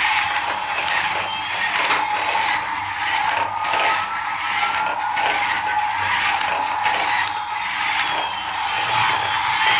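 Small motor and gears whirring steadily, with faint shifts in pitch.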